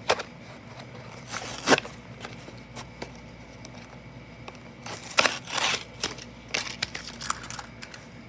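Clear plastic blister packaging of a small toy train being handled and opened, crackling and crinkling in sporadic bursts: one about two seconds in, a cluster around the middle, and a few more after.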